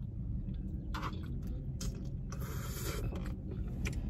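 Close-up eating sounds: noodles being slurped and chewed, with clicks and scrapes of a fork in a plastic takeout tray and a brief hissy slurp about two and a half seconds in. A low steady rumble runs underneath.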